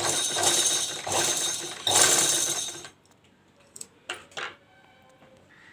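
Sewing machine running to wind thread onto the bobbin, a steady whir that stops about three seconds in, followed by a few light clicks.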